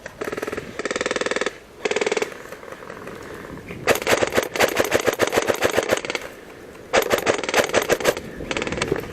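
Airsoft electric guns firing full-auto: several rapid bursts of mechanical clatter, each lasting from half a second to about two seconds. The loudest burst comes about four seconds in.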